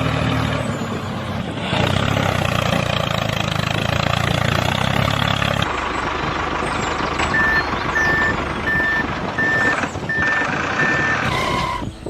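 Steady engine or motor hum with noise over it, which stops a little over halfway in. It is followed by a vehicle reversing alarm: six evenly spaced high beeps, a little under one a second.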